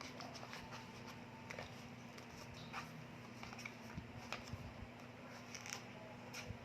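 Faint handling noises: scattered small clicks, taps and crinkles of plastic packaging and small parts from a glucose meter kit being handled, over a low steady hum.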